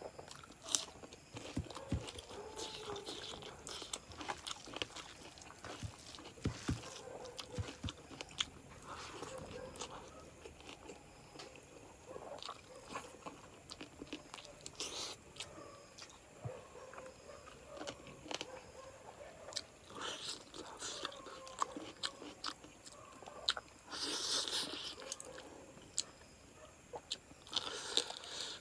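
A person chewing mouthfuls of chicken curry and rice eaten by hand, with many short sharp mouth clicks and a louder noisy stretch about 24 seconds in.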